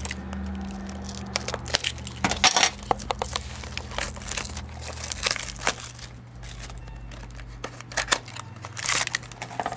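Foil wrapper of a baseball card pack being torn open and crinkled by hand. Irregular crackles and rips, busiest about two seconds in, around five seconds and near the end.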